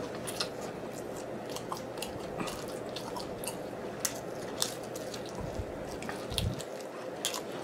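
Close-miked wet chewing, lip smacking and sucking as a man gnaws sticky-glazed chicken wing meat off the bone, with many short sharp clicks scattered throughout.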